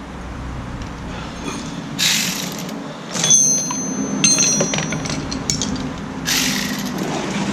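Metal clinking and the clicking of a hand ratchet as a new rear wheel hub bearing assembly is fitted and its bolts are started. There is a run of sharp, ringing metallic clicks in the middle, and a short scraping rush before and after.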